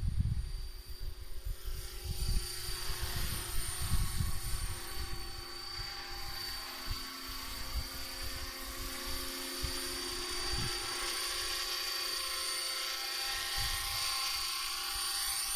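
Radio-controlled scale model Hughes 500E helicopter flying, a steady high-pitched whine with rotor noise that grows louder as it comes down and closes in to hover low, then holds steady.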